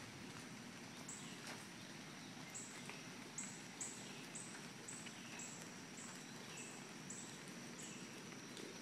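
A high-pitched chirp repeats about twice a second over a faint steady rush, likely floodwater running through a backyard.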